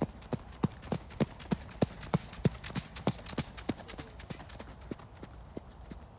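A ridden horse's hoofbeats on arena sand and gravel footing: a regular run of thuds, about three a second, loudest as the horse passes and growing fainter as it moves away.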